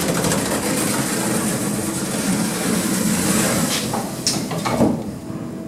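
Passenger lift car travelling after its doors have shut: a steady mechanical rumble and rattle, with a couple of sharp clicks about four to five seconds in, after which the noise eases off.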